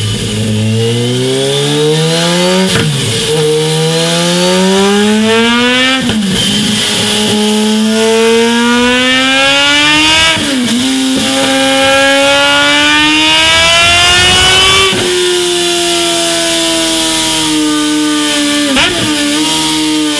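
Kawasaki Z H2's supercharged inline-four running through a Mivv Delta Race slip-on exhaust and pulling up through the gears. The engine note climbs steadily in four long pulls, each broken by a brief dip at the upshift; then it holds and slowly falls as the throttle eases. A single sharp crack comes near the end.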